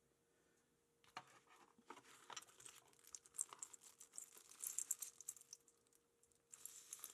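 Packaging being handled and opened: faint crinkling with quick light clicks and taps, in a long spell and then a shorter one near the end.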